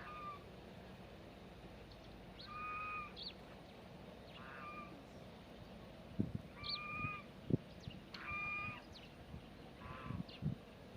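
An animal calling over and over, about six short calls a second or two apart. Each is a steady note, some with a quick high upward chirp. A few soft low thumps come in the second half.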